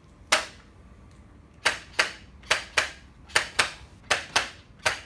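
Handheld chiropractic adjusting instrument firing against the patient's spine: one sharp click, then sharp clicks in quick pairs repeating about every three-quarters of a second.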